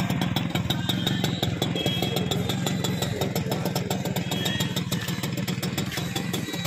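TVS 50 moped's small single-cylinder two-stroke engine idling with a rapid, even beat.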